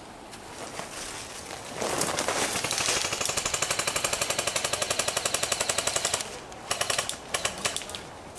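Airsoft electric gun firing full-auto: a long burst of rapid, evenly spaced shots starting about two seconds in and lasting some four seconds, then a few short separate bursts of shots before it stops.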